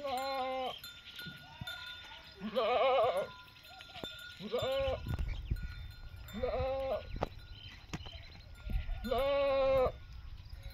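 Goats bleating: five loud calls a second or two apart, the second one with a strong wavering quaver. A low rumble runs underneath through the middle.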